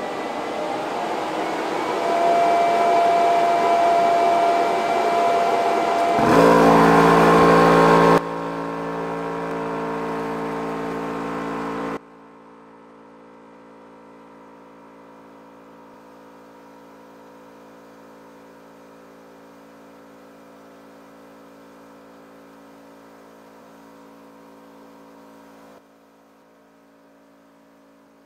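Benjamin ReCharge high-pressure PCP compressor running as it pumps air into a scuba cylinder. It is loud for the first dozen seconds, then cuts abruptly to a quieter steady hum made of several fixed tones.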